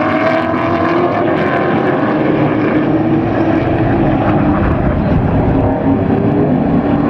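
Engines of several late model race trucks running around a dirt oval together, their pitches gliding slowly up and down and rising toward the end.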